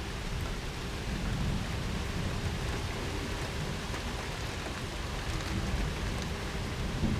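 Steady rain falling during a thunderstorm, with a low, uneven rumble of thunder underneath that swells a few times.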